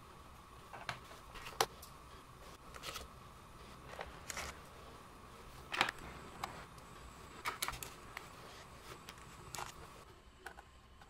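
Faint, irregular clicks and small taps of a pentalobe screwdriver working the screws out of a MacBook Pro's aluminium bottom cover.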